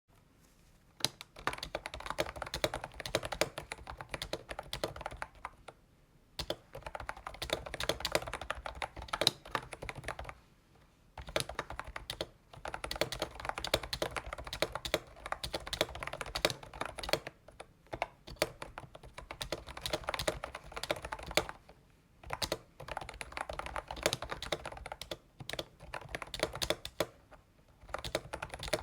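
Fast typing on an AULA S99 membrane keyboard, which has no mechanical switches: dense runs of key presses in bursts broken by a few short pauses.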